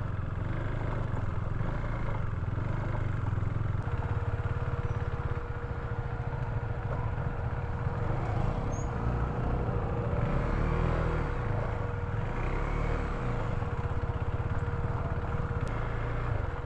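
KTM Duke 390's single-cylinder engine running at low speed over a rough dirt trail. About four seconds in, a steady whine joins it: the radiator cooling fan has switched on.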